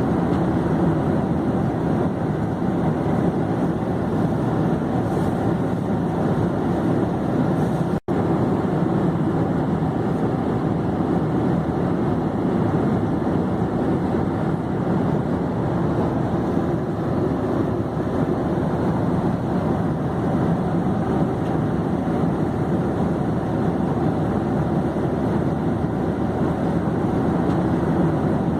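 Airplane in flight: a steady, even engine drone and rush that drops out for an instant about eight seconds in.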